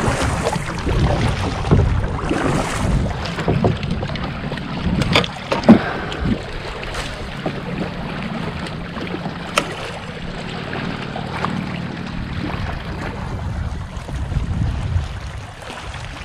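Wind buffeting the microphone and water lapping around a fishing kayak, with a few sharp knocks or clicks, the loudest about six seconds in.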